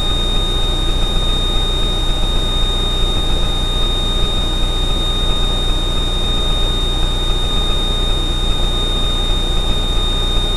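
Steady drone of the Extra 300L's Lycoming six-cylinder engine and propeller in a climb at reduced power, about 25 inches of manifold pressure and 2500 rpm, heard from inside the cockpit. A thin, high, steady whine runs over it.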